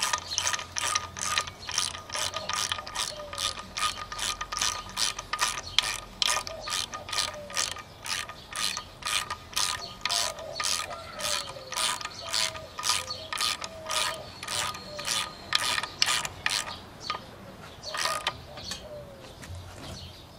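Snap-on hand ratchet clicking in steady back-and-forth strokes, about three clicks a second, as a 1-inch socket tightens the timing-chain tensioner on an Ecotec cylinder head; the clicks thin out and stop near the end as the part comes tight.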